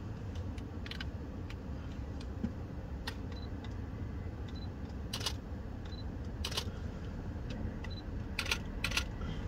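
Camera shutter clicking several times over a steady low rumble of vehicles. The clicks come a second or more apart at first, then twice in quick succession near the end.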